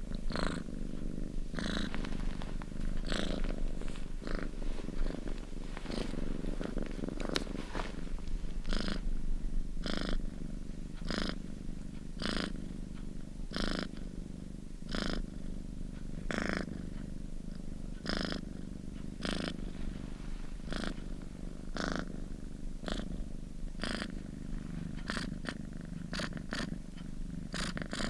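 Domestic cat purring steadily, with a short airy pulse about every second and a half.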